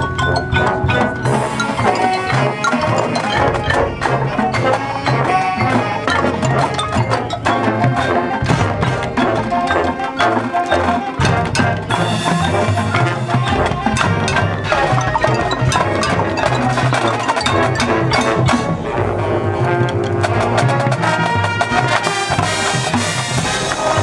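Marching band playing live on a field at full volume: brass with marching drums and a front pit of mallet percussion and drums.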